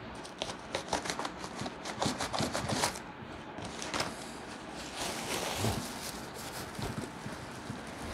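Packaging being handled as a tripod is unboxed: a quick run of sharp crinkles and clicks for about three seconds, then softer, steadier rustling.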